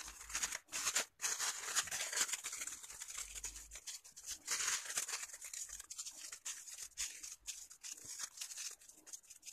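Crepe paper crinkling and rustling as it is twisted by hand into a tight rope, in irregular crackles.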